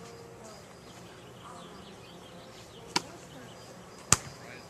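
Two sharp knocks about a second apart, the second louder, over a faint steady high-pitched hum.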